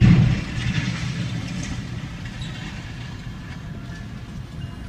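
A train locomotive smashes into a semi-trailer stuck across the level crossing: a sudden loud crash, then the train's rumble carries on and slowly dies down, heard from inside a car.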